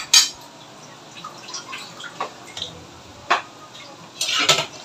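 A few sharp clicks and knocks of kitchenware handled on a tabletop, the loudest right at the start and lighter ones spaced out after. Near the end comes a short rubbing sound of a cloth wiping the table.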